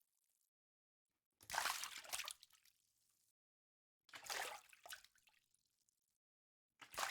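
Water splashing in three separate bursts about two and a half seconds apart, the first about a second and a half in and the last just before the end. Each splash is loudest at its start and trails off over a second or two, with silence between.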